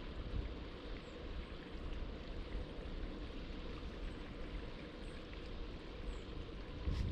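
Steady rush of coastal wind and the wash of surf, with a low rumble of wind on the microphone.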